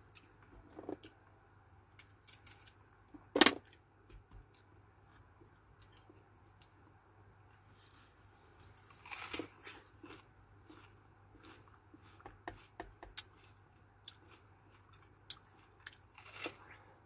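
Quiet handling of fruit over a metal tray: scattered small clicks and rustles, with one sharp knock about three and a half seconds in. Near the end comes a crisp bite into a red wax apple (makopa).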